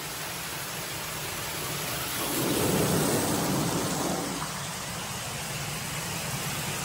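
Steady rush and spatter of flowing water in a lazy river, with water dripping from a rock overhang; it swells louder for about two seconds starting a little past two seconds in.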